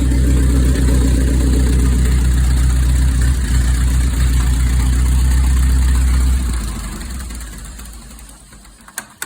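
1938 Massey Harris Pacemaker's overhead-valve engine idling steadily, then shut off about six seconds in by earthing out the magneto, running down to a stop over the next two to three seconds. A sharp click follows near the end.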